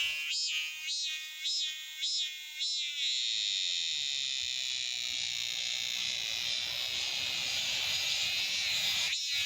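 Cicada singing: a high buzzing call in rhythmic pulses about twice a second, which runs together into one long, steady drone about three seconds in and breaks back into pulses near the end.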